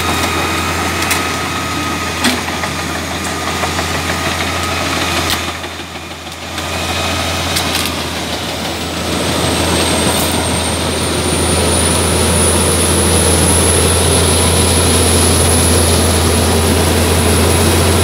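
Heavy wood-chipping machinery running: the Albach Diamant 2000 chipper with the loading shovel working beside it, a steady engine drone with a few sharp knocks. About nine seconds in it grows louder and a high whine rises and then holds steady.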